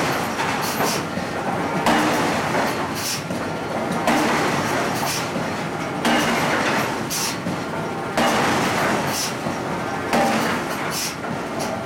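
Forging machine working a red-hot steel flange blank in a ring die: a heavy, noisy stroke comes about every two seconds, each starting suddenly and dying away, over a steady machine hum.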